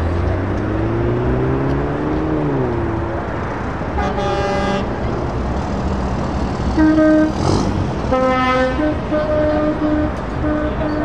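Truck air horns sounding a series of short blasts and toots as trucks pull away in a convoy, over the steady rumble of truck engines. In the first couple of seconds a passing truck's drive note rises and then falls.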